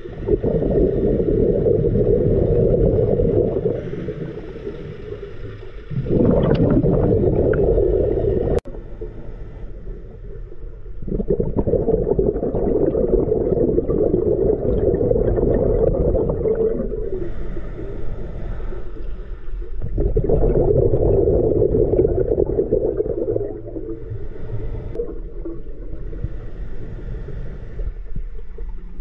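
Scuba diver's exhaled bubbles from the regulator bubbling past the head underwater, coming as long gurgling surges every few seconds with quieter gaps for the inhales between. A single sharp click sounds a little under nine seconds in.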